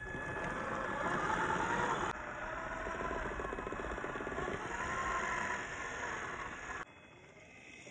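Traxxas TRX-4 crawler's stock brushed electric motor and drivetrain whining, the pitch rising and falling with the throttle. The sound changes abruptly twice, dropping quieter near the end.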